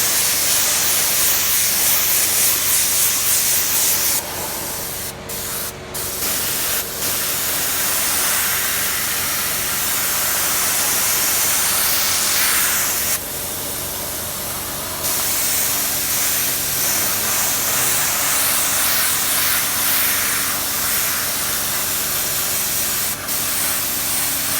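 Spray gun hissing as it sprays dye or paint onto leather car seats, easing off briefly twice, about four seconds in and again about thirteen seconds in, over a faint steady hum.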